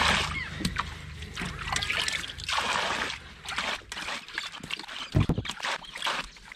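Water splashing into the shallows as a sponge soaked with bilge water from a canoe is wrung out, several short pours. A dull thump about five seconds in, louder than the splashes.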